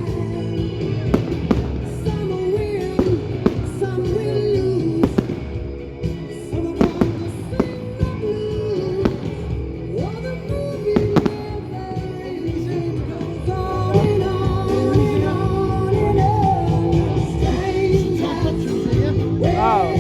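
Fireworks going off in frequent sharp bangs and crackles over pop-rock music with singing.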